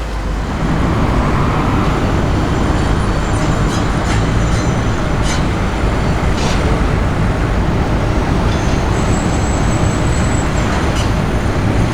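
A car driving steadily on the road, a continuous rumble of tyres and engine without any revving.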